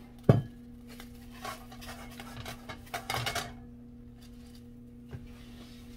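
A glass bottle is set down on a kitchen counter with one sharp knock. Soft clicks, rustling and a light tap follow, over a steady low hum.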